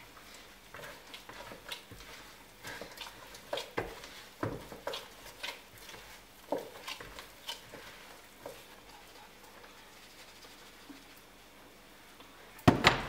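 Gloved hands kneading sticky yeast dough in a plastic bowl: irregular soft squelching and patting, with light knocks against the bowl. A louder thump comes near the end.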